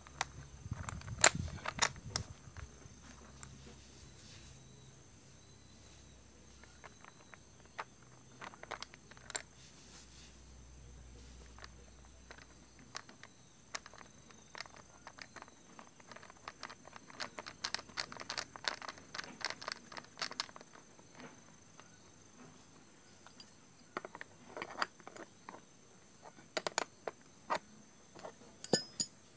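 Scattered small clicks and rattles of a plastic-and-metal seatpost saddle clamp being handled and fitted onto a bicycle saddle's rails, in short clusters. Near the end an adjustable wrench clicks against the clamp bolt as it is tightened.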